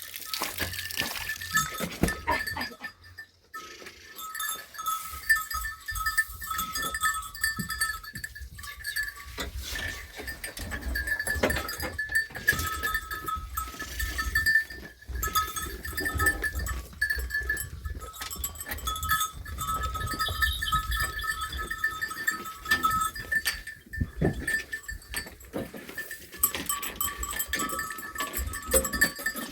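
A flock of sheep and goats bleating, with bells ringing steadily among them and many small clanks. Wind rumbles low on the microphone.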